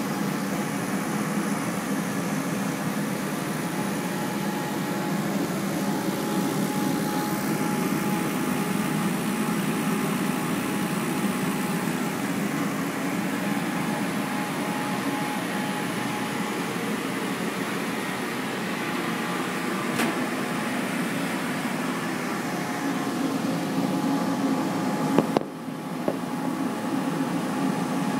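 Steady hum and rush of a CO2 laser cutter's fans and air assist running while it works on a golf ball, with a sharp click about twenty seconds in and a knock about twenty-five seconds in.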